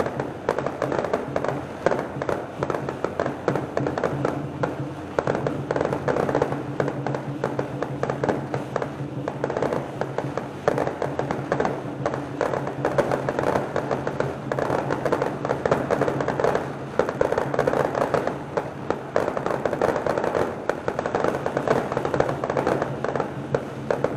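Fireworks and firecrackers crackling densely and without a break, with music playing underneath.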